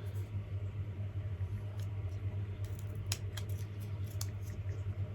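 A few sharp, light clicks from handling and removing packaging, over a steady low hum.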